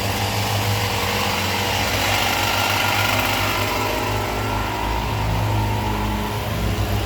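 A small motor running steadily with a low hum.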